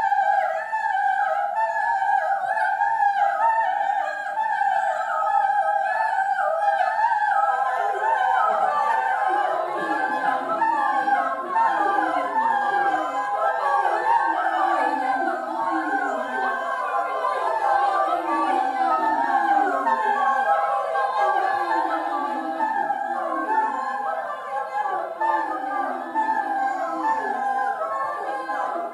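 Choir singing a cappella contemporary music: many voices in a dense, overlapping web of short shifting sung figures. High voices sing alone at first, and lower voices join in about seven seconds in.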